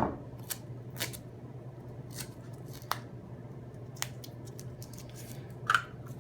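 Tape being handled and cut while it is pressed over the tabs of a rebuilt battery cell pack: scattered small clicks and crinkles, a little louder near the end, over a steady low hum.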